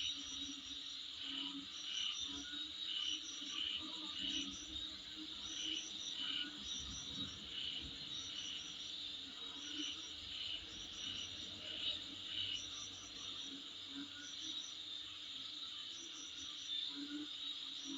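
Insects chirping in a steady, high-pitched chorus, with short chirps repeating about once a second over a continuous trill.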